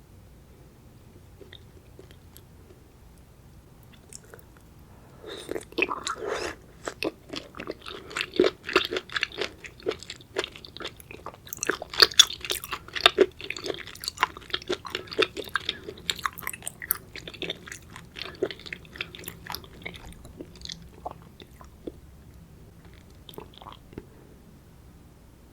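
Close-miked chewing of seafood: wet crunching and clicking bites that start after a few quiet seconds, come thick and fast for a long stretch, then thin out near the end.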